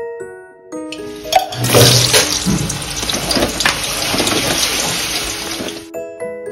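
Raw green banana pieces dropped into hot oil in a metal kadai, sizzling and crackling loudly from about a second in, then cutting off suddenly near the end. Light mallet-instrument music plays around it.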